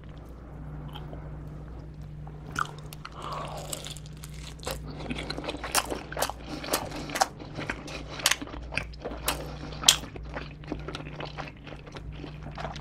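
Close-miked chewing of pizza crust: crisp crunches and wet mouth clicks, irregular, coming several a second from a few seconds in.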